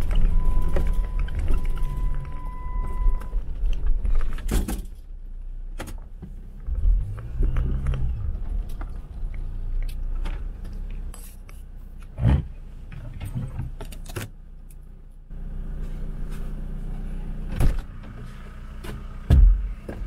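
Jeep Wrangler engine running at low revs, its pitch rising briefly about seven seconds in, with clicks, knocks and rattles throughout and a few heavier thumps in the second half. A steady beep sounds for the first three seconds.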